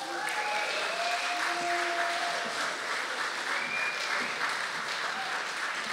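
An audience applauding steadily to welcome a speaker.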